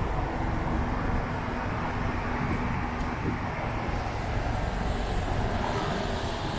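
Steady road traffic noise: a continuous low rumble of passing vehicles, with no distinct single event.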